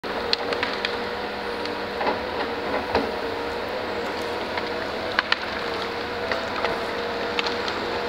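Tracked logging machine working at a distance: steady engine noise with a wavering whine, and scattered sharp cracks and clicks.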